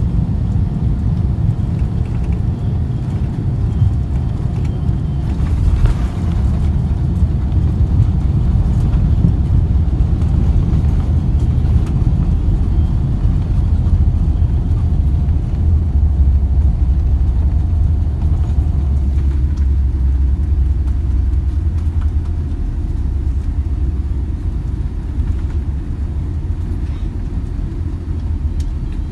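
Airliner cabin noise during the landing roll: a steady low rumble of the engines and the wheels on the runway, heavier in the middle, with a brief knock about six seconds in.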